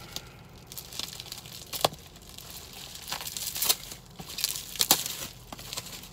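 A tobacco pipe's packaging being crinkled and torn open by hand: irregular crackling with a few sharper snaps.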